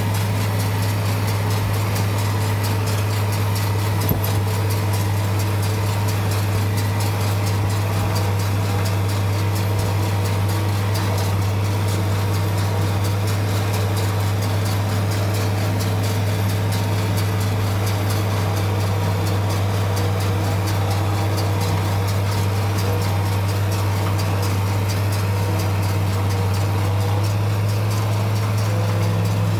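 International 1256 tractor's diesel engine running steadily under load, driving a New Holland 790 forage chopper through the PTO as it picks up and chops windrowed hay.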